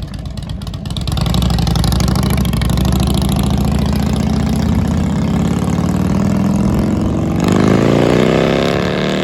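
Harley-Davidson Road King Classic's V-twin engine, bored out to about 1550 cc with a Stage 2 tune, running loud and getting louder about a second in; near the end its pitch rises steadily as the bike accelerates.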